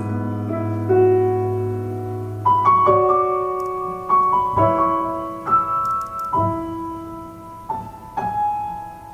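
Piano playing a slow, gentle instrumental passage: notes and chords struck every second or so and left to ring and decay, softening toward the end.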